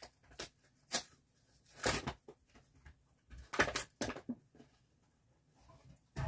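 A handful of short, close crunching and rustling noises with quiet between them, the longest about two and four seconds in: handling and eating noises as frozen pizza is being eaten.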